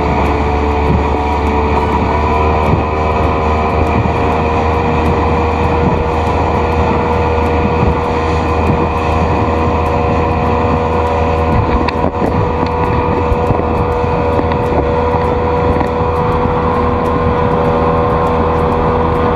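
A speedboat's outboard motor running steadily at cruising speed, a constant drone over the rush of water and wind.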